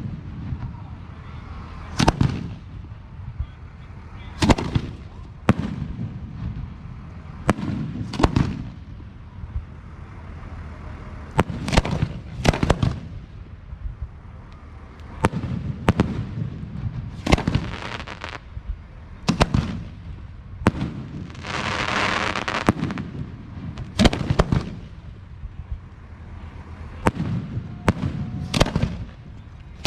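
Aerial fireworks shells bursting in quick succession, sharp bangs every second or two with rumbling echoes after them. About two-thirds of the way through, a longer hissing, crackling burst stands out.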